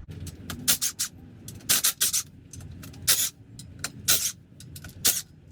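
Socket ratchet clicking in short bursts, about once a second, as a 10 mm bolt is worked loose on a 5.3 L V8 engine during teardown.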